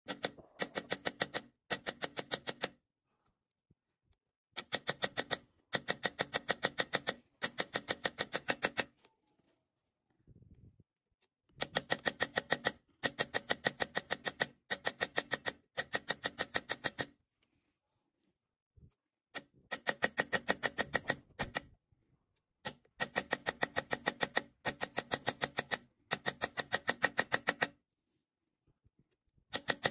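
Small hammer tapping a steel punch to chase a pattern into a brass disc on a steel block: rapid runs of light metallic taps about a second long, each tap ringing with a bright note, broken by short pauses and a few longer silences.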